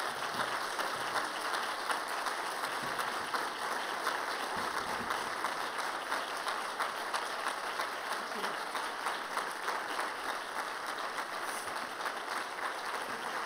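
Audience applauding steadily: many hands clapping, sustained without letting up.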